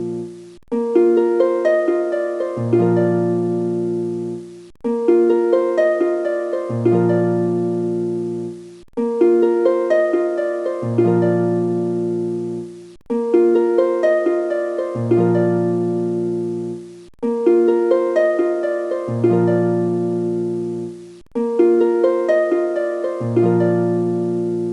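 Background music: a short melody of notes that strike and fade, looped over and over about every four seconds, with a brief cut between each repeat.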